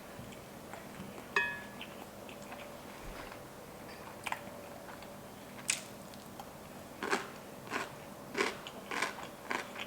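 Close-miked mouth sounds of someone eating: moist chewing of kimbap and ramen noodles, with a single light clink of a utensil against a dish about a second and a half in. A quicker run of chewing sounds, about two a second, begins near the end.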